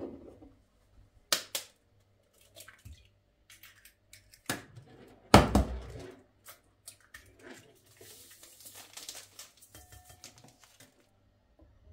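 Kitchen handling sounds at a ceramic mixing bowl: a few sharp knocks and taps, the loudest about five seconds in, then a small paper packet crinkled and torn open near the end.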